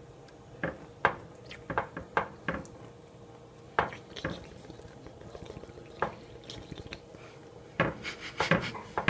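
Kitchen clatter: irregular knocks and clinks of dishes, pans and utensils being handled on a counter, coming faster near the end.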